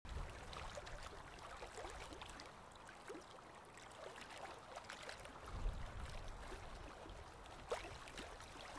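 Faint trickling, bubbling water: a low hiss scattered with small drips and quick rising bloops, with a low rumble swelling about five and a half seconds in.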